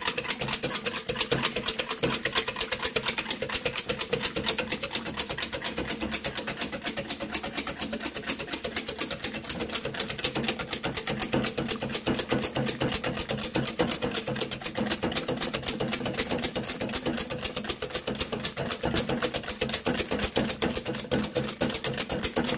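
Wire balloon whisk worked fast by hand in a stainless steel bowl of heavy cream, its wires clicking rapidly and steadily against the metal as the cream is whipped toward peaks.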